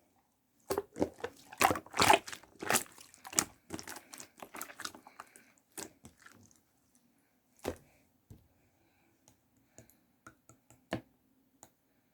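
Homemade slime squeezed and kneaded by hand: a run of wet squishing, crackling and popping for about five seconds, then scattered single pops and clicks.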